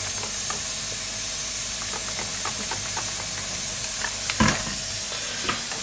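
Sponge with dish detergent scrubbing a small computer-mouse circuit board: soft rubbing with light scratchy ticks over a steady hiss, and one louder knock a little past four seconds in.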